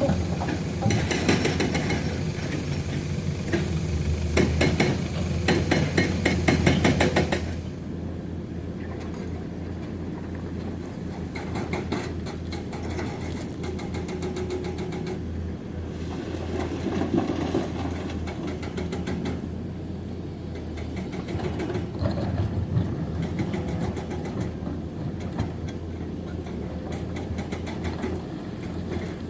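Limestone rock being loaded into a dump truck's steel bed, a dense clattering for about the first seven seconds, then heavy diesel engines running steadily with occasional knocks.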